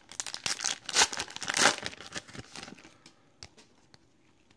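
Wrapper of a trading card pack crinkling and tearing as it is ripped open, for about three seconds, then a few faint clicks.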